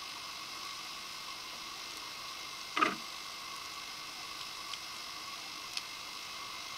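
Steady hiss and faint hum of an underwater recording, with one short, sharp clicking rattle about three seconds in and two fainter ticks later.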